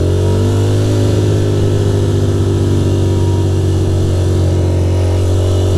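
Ducati Monster's V-twin engine pulling under throttle: its revs climb over the first second, then hold steady as the motorcycle cruises, with wind and road noise underneath.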